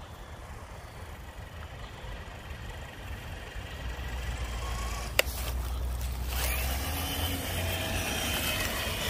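Electric motor and gear whine of an RC crawler truck driving over a dirt trail toward the microphone, growing louder and coming through plainly from about six seconds in. A single sharp click about five seconds in.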